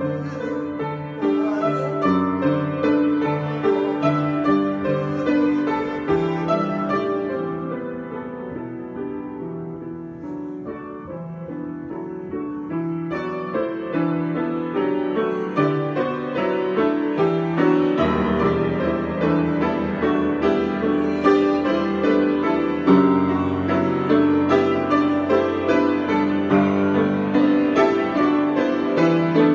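Solo piano improvisation with many overlapping notes. It softens for a few seconds a third of the way in, then builds again, with deeper bass notes joining just past the middle and the playing growing fuller toward the end.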